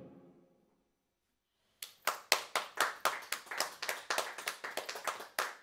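The last electric guitar chord dies away. About two seconds in, a few people begin clapping, in distinct separate claps rather than a dense wash of applause.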